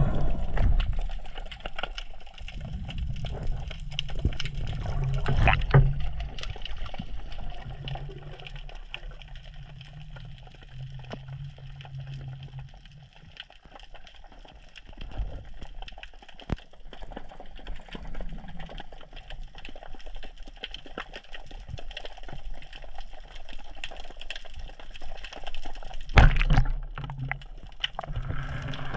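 Underwater water noise heard through a camera housing: sloshing and gurgling with a low rumble and scattered small clicks. About 26 seconds in comes one sharp, loud burst: a speargun firing, a shot that misses.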